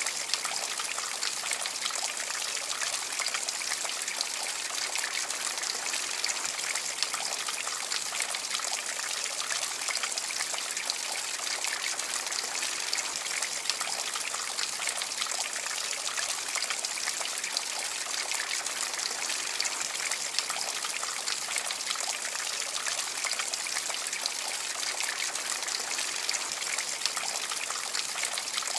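Copper tree water feature running: many thin streams of water fall from its water-fed copper leaves, making a steady trickling and splashing.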